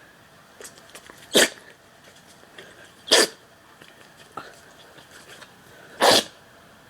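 Dog sneezing three times, each a short sharp burst, with faint snuffling between.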